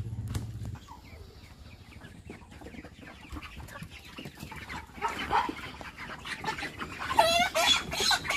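Chickens squawking as they are grabbed by hand, starting with scattered calls and breaking into loud, rapid squawking about seven seconds in. A low steady engine hum cuts off under a second in.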